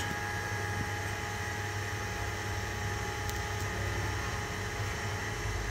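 Steady mechanical hum of workshop background noise, with a few faint steady tones and a low rumble that grows slightly near the end.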